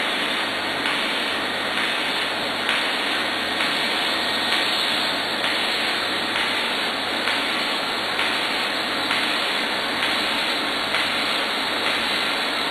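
Robotic pipe welding: the welding arc gives off a steady, even noise with no breaks.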